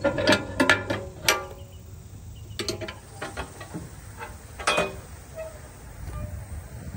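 Metal housing cover and latch of an Invensys Rail crossing gate mechanism being worked by hand: a quick run of clanks and clicks in the first second and a half, then a few single clicks.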